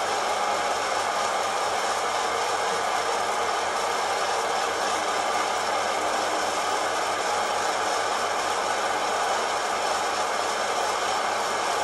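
Kaffelogic fluid-bed coffee roaster running mid-roast: its fan blows hot air steadily up through the roast chamber, with a fine rattle of beans tumbling in the airflow.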